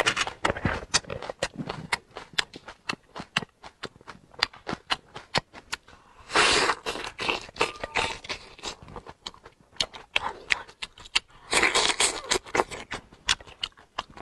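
Close-up eating sounds of raw marinated shrimp: shells cracking and crackling as they are peeled and bitten, with wet chewing and sucking. There are many sharp clicks, and two louder, longer stretches about six and twelve seconds in.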